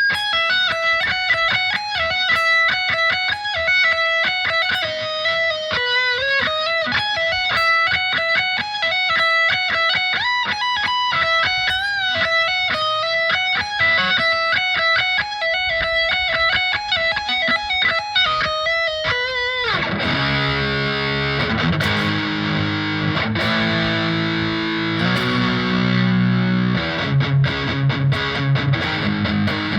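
Les Paul-style electric guitar with a set mahogany neck played through a Roland Cube Lite amp on its distortion sound, picked up by a phone microphone. A quick single-note lead melody runs for about 19 seconds, slides down in pitch, then gives way to lower, sustained chords.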